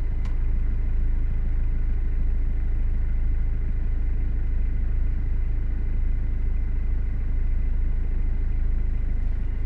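JCB 3CX backhoe loader's diesel engine running at a steady pace while driving, a constant low rumble heard from inside the cab, with a faint steady high-pitched whine above it.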